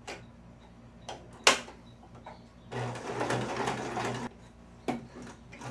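Electric sewing machine stitching in one short run of about a second and a half, a little past the middle. A sharp click, the loudest sound, comes about a second before the run, and a smaller one shortly after it.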